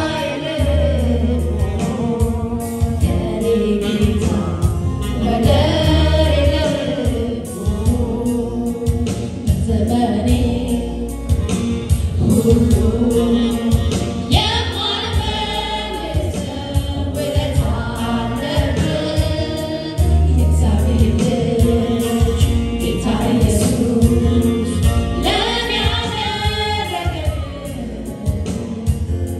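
Live gospel praise-and-worship singing: a female lead singer with a small group of backing singers, accompanied by an electronic keyboard and amplified through the PA.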